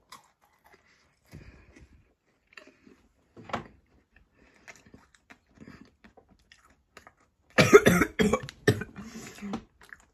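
A person coughing, a quick run of four or five loud coughs near the end, after a few faint scattered small sounds.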